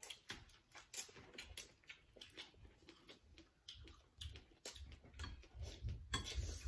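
People chewing and slurping rice noodles close to the microphone: a run of short mouth clicks and smacks, busier and louder near the end.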